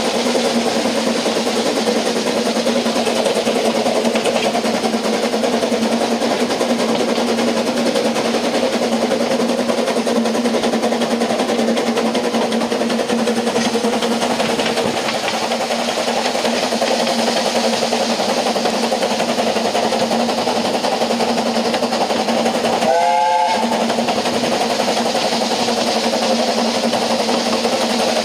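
Narrow-gauge steam train on the move, heard from an open carriage window: the coach's steady rumble and rattle along the track. About 23 seconds in comes a short, wavering toot of the Double Fairlie steam locomotive's whistle.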